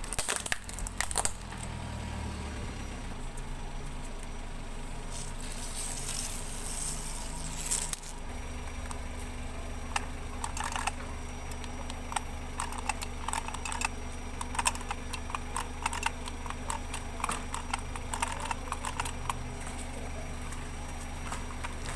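A car tyre rolls onto a plastic toy jet plane and cracks it in a quick run of sharp snaps in the first second or so, over the car's idling engine. Later come many light plastic clicks and rattles as toy water pistols are handled.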